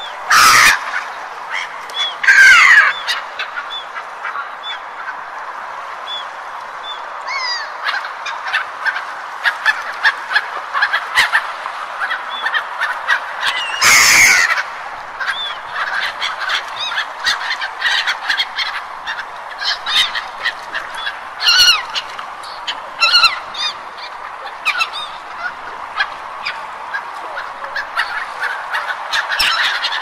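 A flock of gulls calling, many short overlapping calls, over a steady rushing noise. A few louder bursts of noise cut through, the biggest about halfway.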